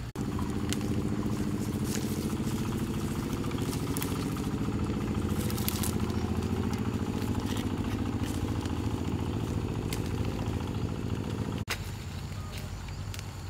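Small motorbike engine running steadily. It breaks off for an instant near the end and carries on.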